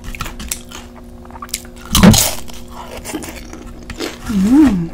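Close-up eating sounds: a crunchy tortilla chip bitten with one loud crunch about two seconds in, and small wet chewing clicks around it.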